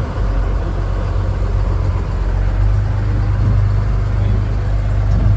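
Steady low rumble of a running vehicle engine, heavy in the bass and slightly louder through the middle.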